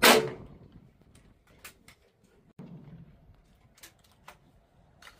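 A single over-under shotgun shot fired at a clay target, its report fading over about half a second. A dull thump follows about two and a half seconds in, then a few faint clicks as a break-action shotgun is opened.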